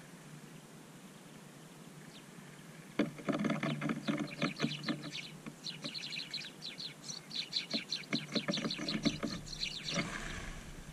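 Small birds feeding and fluttering on seed spread over snow close to the microphone: a busy run of quick ticks and flutters starting about three seconds in. It ends abruptly around ten seconds in with a short flurry as the flock takes off.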